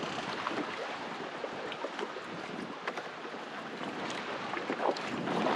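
Wind rushing over the microphone and choppy water slapping against a small fishing boat. The rush is even, with scattered small splashes and knocks.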